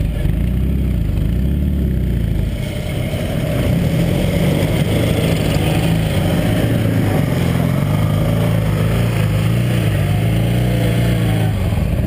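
Ural sidecar motorcycle's air-cooled flat-twin engine idling steadily close by.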